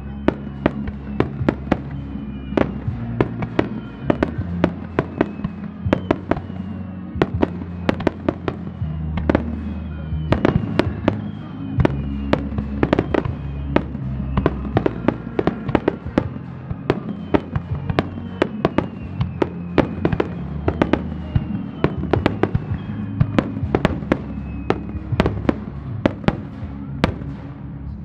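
Starmine fireworks barrage: a rapid run of sharp shell bursts and bangs, a few a second, over music with held low notes.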